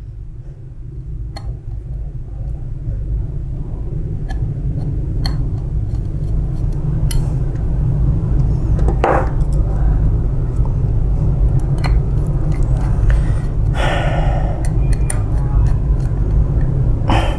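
A steady low rumble that grows louder, over scattered light clicks and taps of a metal copier cleaning-blade bar and a screwdriver being handled, with a brief scrape about 9 seconds in and a longer rasp about 14 seconds in.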